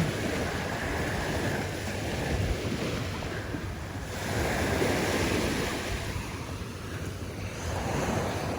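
Sea waves breaking and washing on the shore, swelling and easing over a few seconds, with wind buffeting the microphone.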